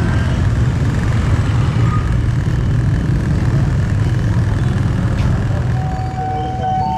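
Motor scooter engine running and the rumble of nearby street traffic as it rides along. About six seconds in, background music with held, stepping tones comes in.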